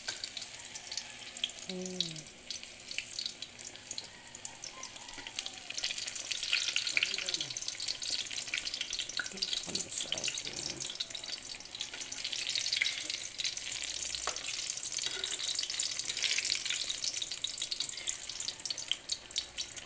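Halved bananas frying in hot oil in a metal wok: a steady sizzle full of fine crackles and pops, growing louder a few seconds in.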